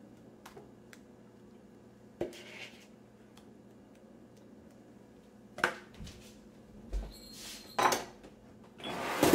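Faint scraping and tapping of a spoon on a plastic mixing bowl as cake batter is spooned into a loaf tin. Over the last few seconds come several sharper knocks and clatters of kitchenware being put down and handled.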